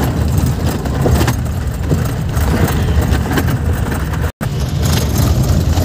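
Cabin noise of a vehicle driving slowly over a rough dirt road: a steady engine and road rumble with irregular rattling and knocking from the body over the bumps. The sound cuts out for an instant a little over four seconds in.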